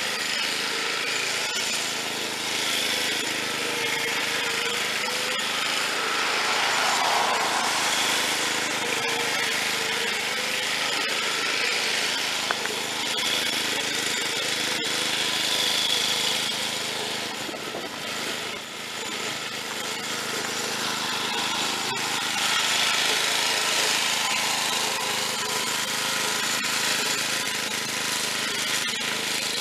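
Snapper rear-engine riding mower's engine running as the mower drives back and forth, growing louder twice as it passes close by.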